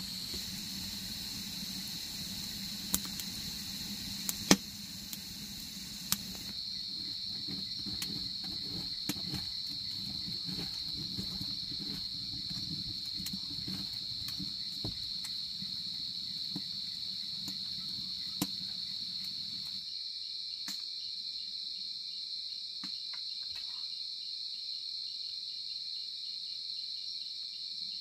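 Steady high-pitched chirring of crickets or other insects, with a few sharp clicks in the first six seconds and another later on.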